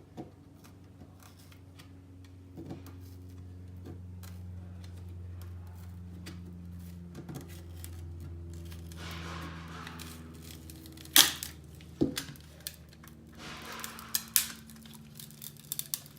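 Sharp plastic snaps and crackling tearing as a touch-screen digitizer is pried and peeled away from its double-sided adhesive tape, the loudest snaps about two-thirds of the way in. A low steady hum runs under the first part and fades out.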